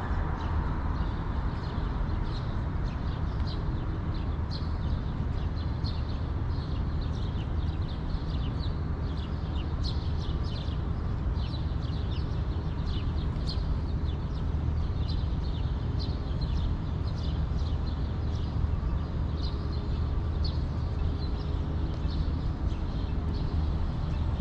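Birds chirping many times over a steady low city rumble.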